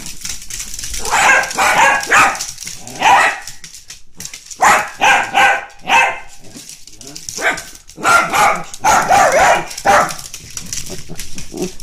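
Dachshunds barking excitedly in repeated bursts of several barks at a time, with short quieter gaps between, while they play-fight and chase.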